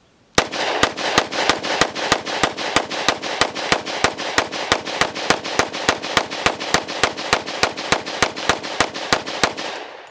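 Glock 29 Gen 4 10mm compact pistol firing rapid semi-automatic shots, around two dozen at about three a second. It empties an SGM 30-round extended magazine, starting about half a second in and stopping just before the end.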